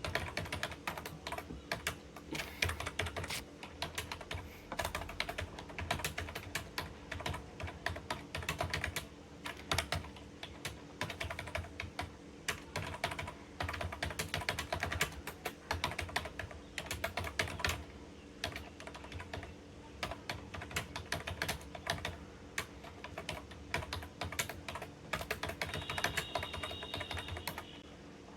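Computer keyboard being typed on fast and continuously during a typing test at about 43 words a minute, a dense irregular run of key clicks that stops shortly before the end. A steady low hum runs underneath.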